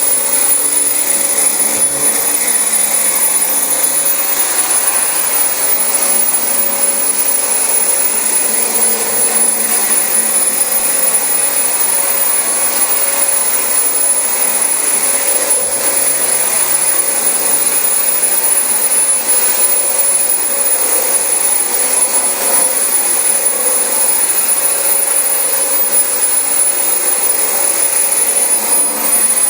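Dyson DC25 bagless upright vacuum cleaner running steadily as it is pushed over carpet, a constant motor rush with a high, steady whine on top.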